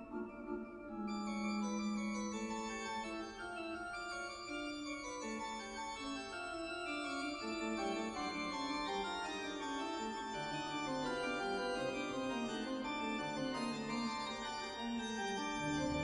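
Organ music: slow, sustained chords held and changing note by note, with deep bass notes coming in near the end.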